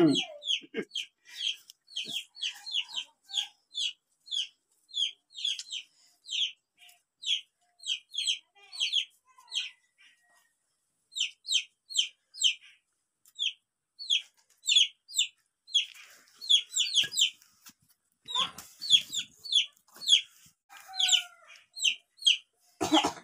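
Chicks peeping: a rapid, unbroken run of short, high, falling chirps, two or three a second.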